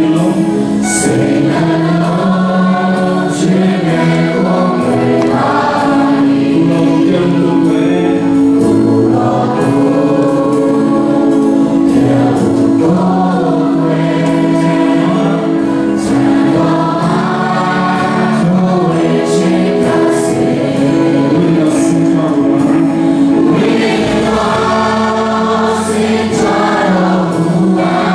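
Live Burmese worship song: a group of male and female singers singing together into microphones with guitar-led band accompaniment.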